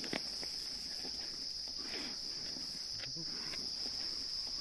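A steady high-pitched insect chorus keeps up without a break. Underneath it are faint scattered animal calls and a few soft knocks, from the hyenas and the zebra.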